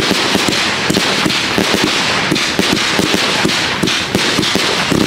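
Fireworks battery (cake) firing: a dense, continuous rattle of rapid shots and crackle.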